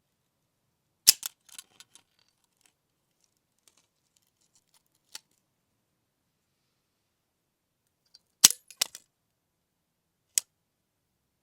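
Spring-loaded mousetrap snapping shut twice, each sharp snap followed by a brief rattle of smaller clicks, with a single lighter click between the snaps and another near the end.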